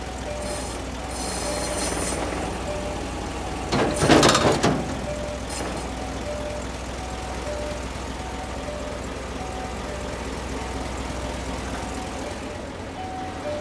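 Isuzu Giga truck's diesel engine idling steadily, with a loud burst of air hiss lasting about a second, about four seconds in.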